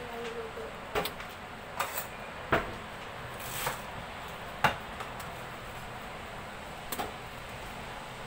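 A knife knocking on a wooden cutting board about half a dozen times at irregular intervals while leafy greens are cut, with a brief rustle a little past the middle.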